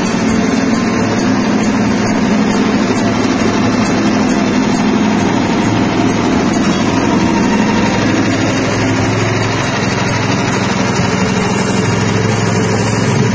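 Soybean seed-coat peeling machine running steadily with soaked soybeans passing through it, a constant motor noise with a low hum.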